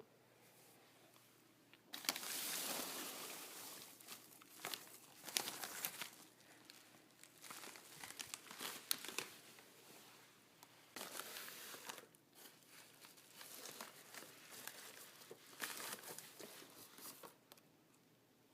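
Packaging being handled and unwrapped, crinkling and rustling in irregular bursts with short pauses, starting about two seconds in.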